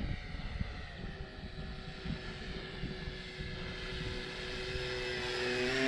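E-flite Beechcraft D18 twin-engine electric RC plane in flight, its two motors and propellers giving a steady droning whine that grows louder near the end as the plane comes closer.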